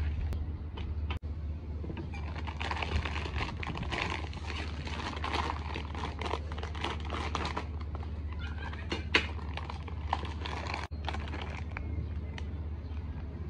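Plastic packaging of a rice vermicelli pack crinkling and rustling as it is handled and opened and the noodle bundles are pulled out, over a steady low hum. A short trickle of water poured into a wooden bowl comes first.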